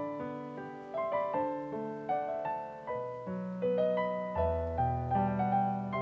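Background piano music: a gentle melody of struck notes with a bass line, at an even, unhurried pace.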